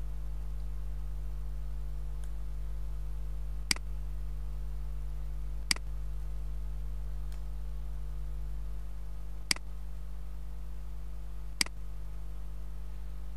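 Four sharp single clicks a few seconds apart from computer mouse and keyboard use, over a steady low electrical hum.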